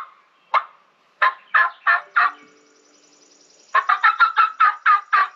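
Wild turkeys calling: a few separate notes early on, then about three and a half seconds in a gobble, a fast rattling run of notes.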